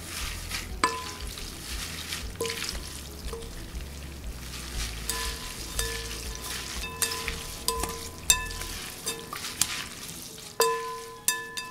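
Seasoned glass noodles and shredded vegetables being tossed and mixed in a glass bowl with a spoon and wooden chopsticks: a wet, squishy rustling with repeated clinks of the utensils against the bowl, which rings briefly after each tap.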